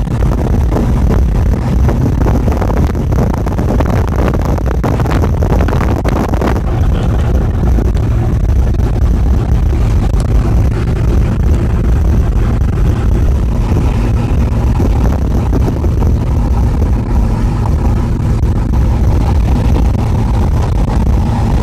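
An engine running steadily under way: a loud, even low rumble, with wind noise over it.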